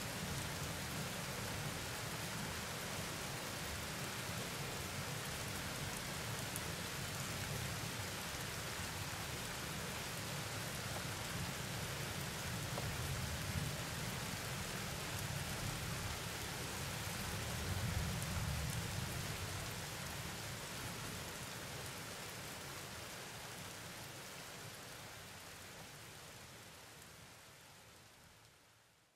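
Rain falling steadily in a night thunderstorm, with a low thunder rumble underneath that swells about eighteen seconds in. The whole sound then fades out gradually over the last several seconds.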